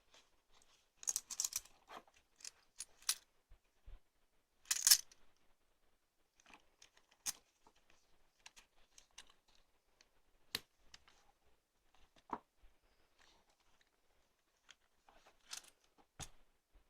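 Irregular handling noises: scattered sharp clicks and light clinks with short rustles, a cluster of them a second or so in and the loudest rustling burst about five seconds in, then single clicks every couple of seconds.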